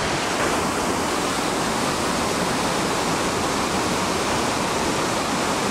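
Steady rush of a big whitewater rapid, powerful river water churning through waves and holes.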